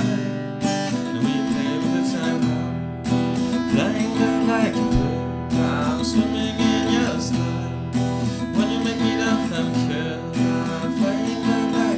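Music: strummed acoustic guitar with a melody line over it, no lyrics sung.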